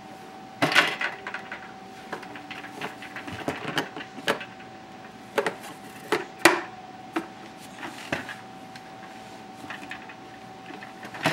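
Irregular knocks and clicks of small hard objects being handled and set down, a few of them sharp and loud, over a steady faint hum.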